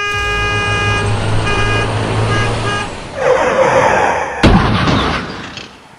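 A large vehicle's horn sounding over a low engine rumble, first one long blast and then several short ones, followed by a rush of noise and one sharp crash-like impact about four and a half seconds in.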